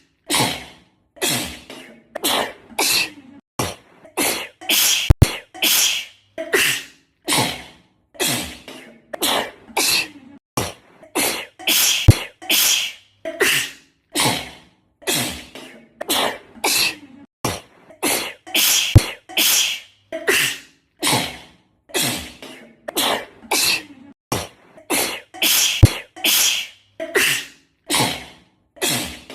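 A girl sneezing over and over in a fit, about one sneeze a second, each sneeze cut off short. The run of sneezes is an edited loop, with a sharp click about every seven seconds where it restarts.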